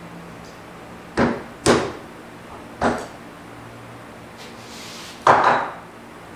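Four sharp knocks from handling a metal twin-barrel soft-plastic hand injector and mold on a workbench: two close together about a second in, one near three seconds, and the loudest about five seconds in.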